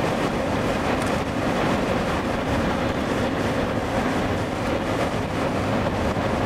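Car driving along a dirt road, heard from inside the vehicle: a steady rumble of engine and road noise.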